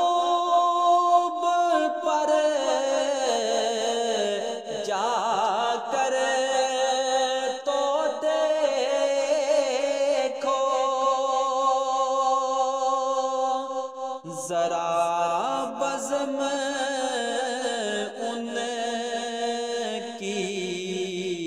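A solo voice singing an Urdu naat, drawing out long wavering notes that glide from pitch to pitch between the lyric lines, with no clear words.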